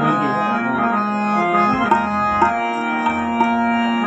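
Harmonium and hand drum playing an instrumental bhajan passage: held reed chords with drum strokes under them.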